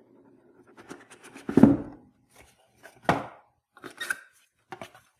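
A cardboard box being handled and opened by hand: a short thump about a second and a half in, then a few shorter knocks and rustles of cardboard and packing.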